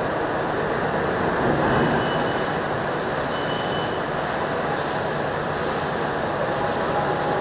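Steady, dense mechanical noise of CNC machine tools running in a factory machine shop, with two faint short high tones about two and three and a half seconds in.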